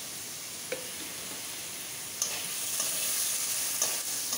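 Prawns frying in a spice paste in a kadai, sizzling steadily, with a metal spatula scraping and clacking against the pan. The stirring gets louder about two seconds in.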